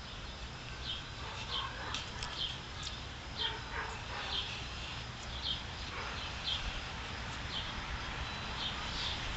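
A bird calls repeatedly outdoors, a short high chirp about once a second. Between about two and four seconds in come a few brief scraping strokes of a carbon-steel folding knife shaving thin curls off a willow stick.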